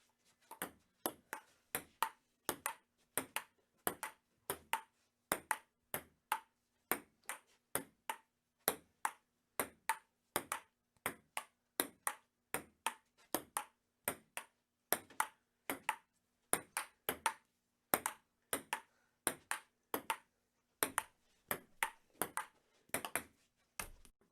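Table tennis rally: a celluloid ball clicking steadily back and forth off paddles and table, about two hits a second.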